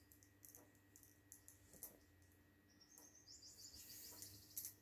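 Near silence with faint rustling of a folded sequined chinon dress fabric being unfolded and lifted by hand. A faint high chirping runs from about three seconds in until just before the end.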